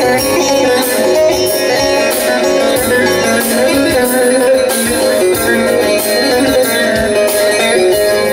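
Bağlama (long-necked Turkish saz) playing an instrumental passage of a Teke-region folk tune: quick runs of plucked notes over held notes that ring on steadily.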